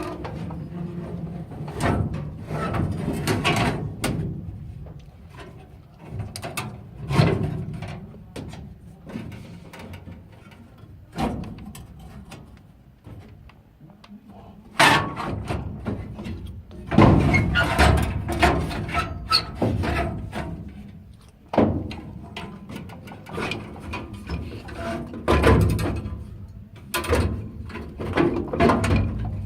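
Irregular metal clanks, knocks and scraping as a cleaned furnace burner is worked back into place, with the loudest knocks about halfway through and again near the end.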